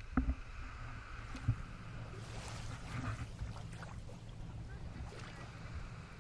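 Steady low rumble of a moving outrigger boat, with two sharp knocks in the first second and a half and a rushing hiss that swells and fades again between about two and four seconds in.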